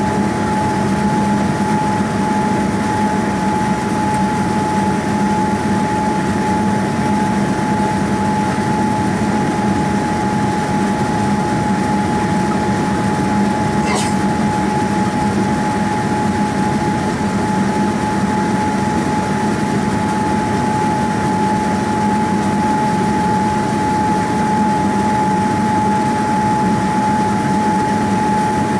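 Boeing 787-9 cabin noise heard from a window seat over the wing during climb-out: the steady drone of its Rolls-Royce Trent 1000 turbofans and the rush of air, with a steady high tone over the low rumble. A single brief click about halfway through.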